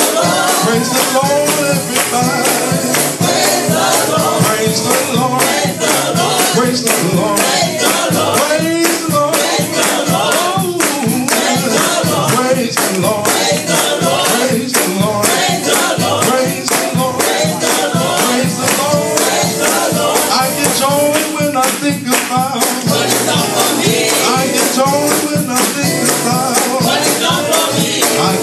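Live gospel praise music: a man sings lead over a Roland Juno-DS keyboard and a drum kit playing a steady beat.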